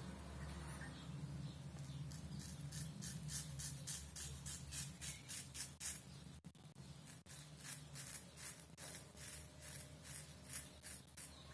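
Kamisori straight razor scraping stubble off a lathered jaw in short, quick strokes, about three a second, starting about two seconds in. The scraping is faint.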